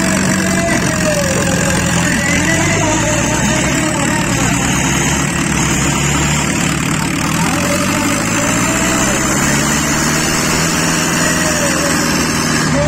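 Two diesel farm tractors running hard and steady under heavy load, pulling against each other chained back to back in a tug-of-war.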